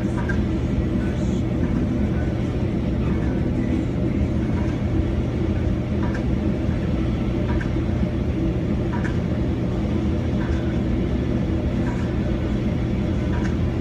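Link-Belt 218 crawler crane's diesel engine running steadily with a low hum, with faint regular knocks about every second and a half.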